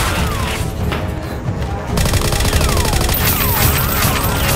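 Action background music with dubbed-in gunfire sound effects: sharp shots and falling whistle-like whizzes, coming thicker in the second half.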